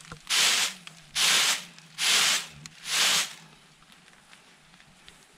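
Threshed rice grain swishing and rattling in a round woven bamboo winnowing tray as it is jerked to toss out the chaff: four rhythmic swishes, a little under a second apart.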